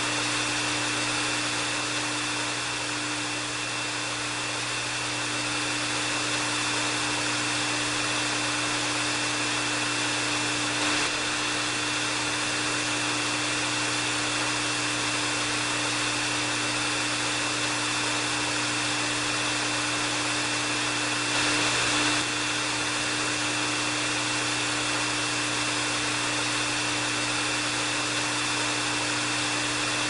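Electric hair dryer running steadily: an even rush of blown air with a constant motor hum and a thin high whine.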